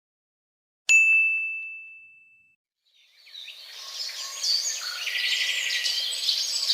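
A single bright ding, one clear tone that rings and fades over about a second and a half, then birds chirping that fade in about three seconds in.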